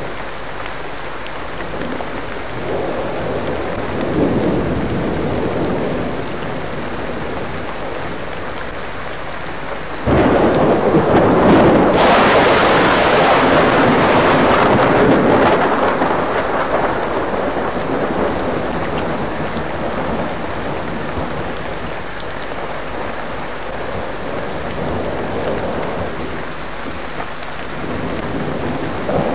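Thunderstorm: rain falls steadily throughout. About a third of the way in, a sudden loud thunderclap breaks in and rumbles on, fading slowly over roughly ten seconds. A fainter swell of thunder comes early on.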